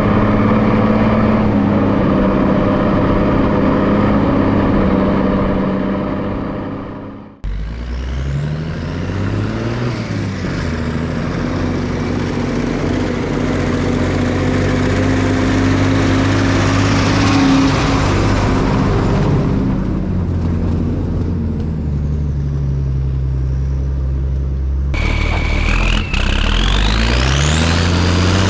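Multifuel diesel engine of an M51 5-ton 6x6 military dump truck running under load while driving, its pitch sliding down and up as it changes speed. The sound cuts off abruptly about 7 seconds in and picks up again. Near the end a rising whine climbs with the engine.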